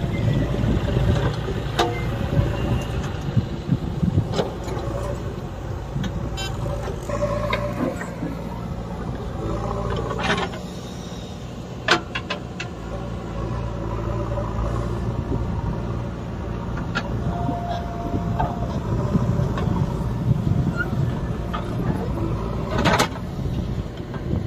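JCB 3DX backhoe loader's diesel engine running steadily while the backhoe bucket digs into sandy soil, with sharp clanks and knocks now and then from the bucket and arm, the loudest about halfway and near the end.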